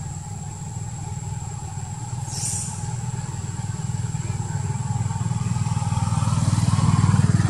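A motor vehicle engine running steadily and growing louder as it approaches, loudest near the end.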